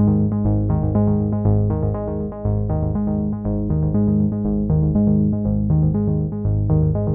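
Background electronic music: quick, evenly repeated synthesizer notes, about four a second, over a bass line that steps between notes.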